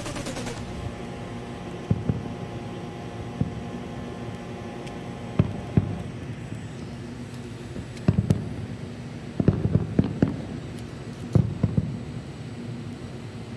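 Distant fireworks booming at irregular intervals, some as single dull thumps and some in quick clusters of two or three, over a steady background hum.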